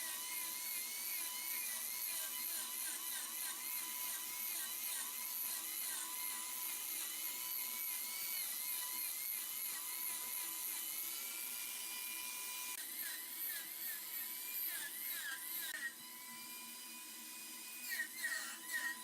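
A wood lathe turning a wooden bowl while a hand tool cuts into the spinning wood. It makes a high, drill-like whine with squealing scrapes that rise and fall in pitch over and over. It turns quieter about sixteen seconds in.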